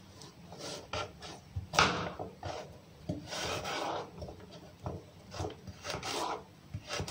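Irregular rasping and rustling strokes from hands working with food and packaging on a kitchen counter, each lasting a fraction of a second.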